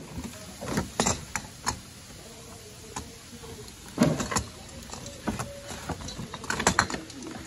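Handling noise from Christmas ornament boxes being moved and opened: scattered knocks, clicks and rustles, with the loudest thump about four seconds in and a quick run of clicks near the end.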